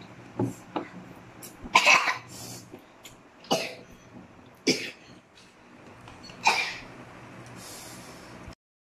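A child coughing repeatedly, about six single coughs a second or two apart, the loudest about two seconds in and again near the end, from the burn of ghost pepper instant noodles.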